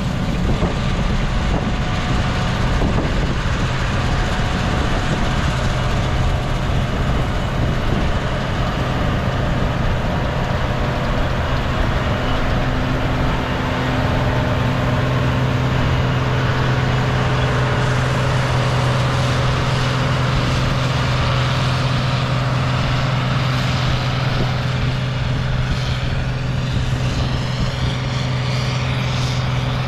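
Combine harvester running steadily at work, a constant low engine hum under a wash of machine noise.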